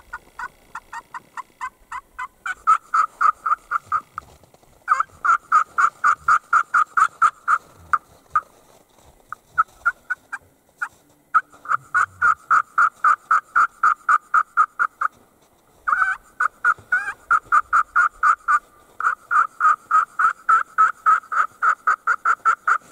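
Hand-played Primos turkey call imitating a turkey, sounding long runs of quick yelps at about five notes a second, with short breaks between the runs.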